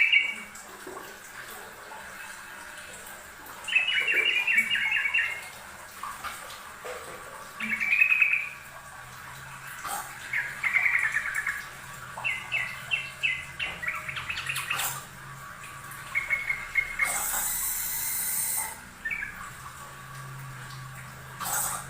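Yellow-vented bulbul (trucukan) singing: short, bubbly chattering phrases repeated every two to four seconds. A brief burst of hiss comes near the end.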